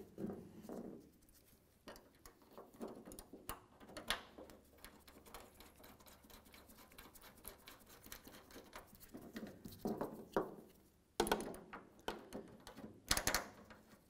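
Small metal clicks and scrapes of new bolts being started by hand into a pickup's tailgate latch and the latch being positioned against the tailgate, with a few louder metallic knocks and clicks near the end.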